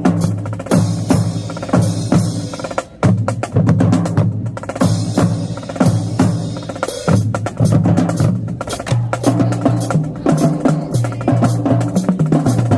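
Marching drumline playing: rapid snare drum strokes over pitched bass drum notes, with a brief break about three seconds in.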